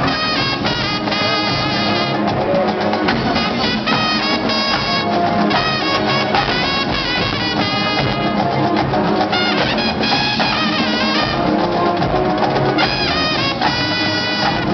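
Marching band playing a classic rock arrangement live: the brass section carries the tune in loud held phrases over the drumline's percussion.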